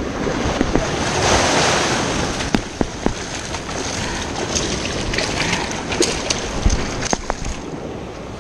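Sea surf surging and washing over rough rocks, swelling about a second in, with several sharp knocks scattered through it.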